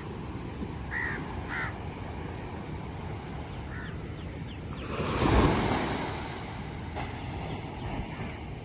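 Ocean surf rolling onto a beach: a steady wash of water with one wave breaking loudest about five seconds in, then receding. A few short high calls sound over it in the first four seconds.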